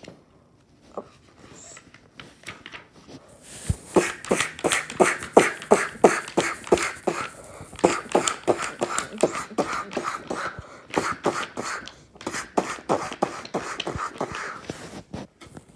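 A person making rapid percussive sound effects with the mouth while flapping a book page back and forth. The run starts a few seconds in and goes on until near the end.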